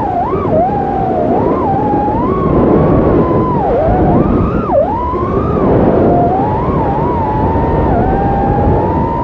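Brushless motors and propellers of a 4S micro FPV quadcopter (T-Motor F1507 motors) whining as heard from the onboard camera. The pitch swoops up and down with the throttle, with sharp drops about four and five seconds in, over a steady rushing noise of props and air.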